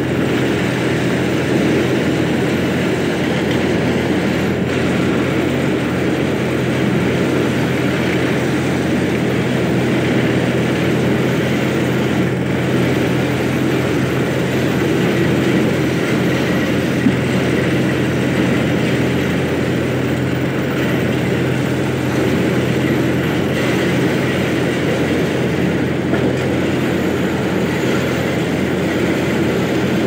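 Yanmar mini excavator's diesel engine running steadily while the machine digs soil.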